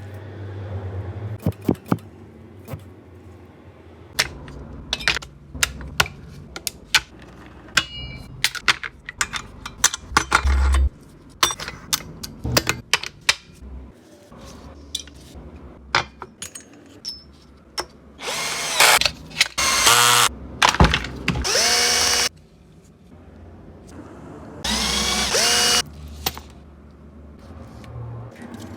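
Clicks and knocks of parts and tools being handled, with a small power tool whirring in several bursts that rise in pitch as it spins up, the longest near two-thirds of the way through and another a few seconds later.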